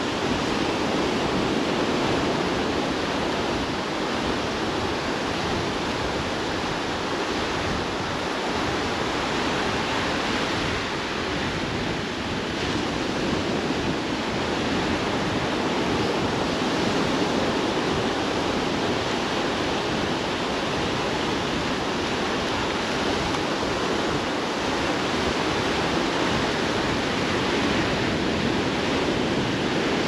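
Sea surf breaking and washing on a sandy beach: a steady, even rushing sound.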